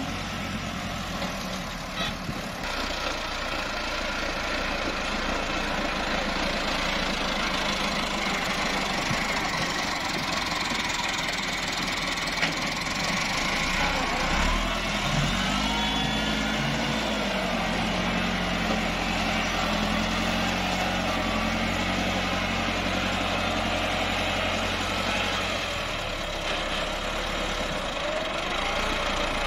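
Massey Ferguson tractor's diesel engine running steadily while pulling a heavily loaded soil trolley. About halfway through, the engine note rises and holds higher for several seconds before settling back.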